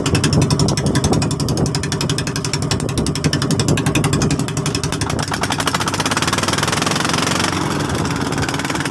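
Outrigger boat's engine running close up from the open engine compartment, a fast, even knocking beat that quickens about five seconds in.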